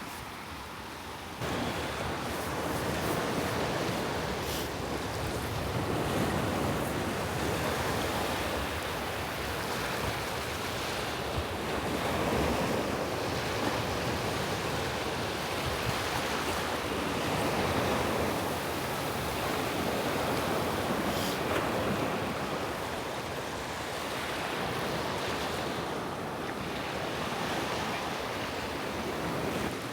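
Gentle sea waves washing up on a sandy beach, the surf swelling and easing every few seconds.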